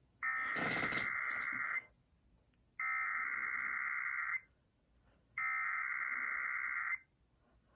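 Emergency Alert System SAME header being sent: three identical bursts of shrill, warbling digital data tones, each about a second and a half long with a second's pause between them, the first with a burst of hiss over its start. This repeated data burst encodes the alert, here a required weekly test.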